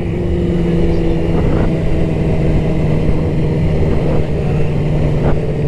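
Motorcycle engine running at a steady cruising speed, heard from the rider's seat, its note holding level over a rumble of wind and road noise.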